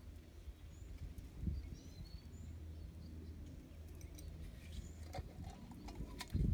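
Outdoor garden background with a steady low rumble and a few faint bird chirps, a dull low thump about a second and a half in and a louder one near the end, and light clicks as small objects are handled.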